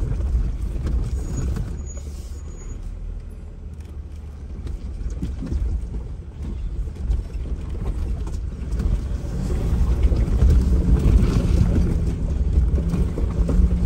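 Off-road vehicle engine running as it crawls a rocky trail, with a steady low rumble that dips, then grows louder with a clear engine hum about two-thirds of the way in.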